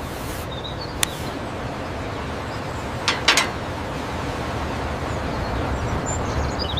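Steady rushing background noise, with a sharp click about a second in, two more clicks a little after three seconds, and faint high chirps.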